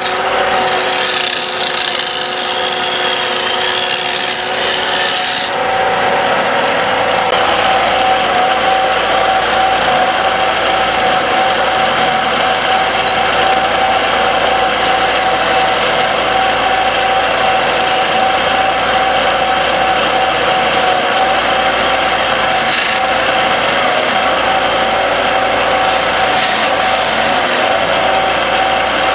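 Wood lathe running while a tool rubs and scrapes against the spinning wooden pestle blank: a steady rasping noise over the machine's hum. About five seconds in, the high hiss eases and a steady tone comes forward.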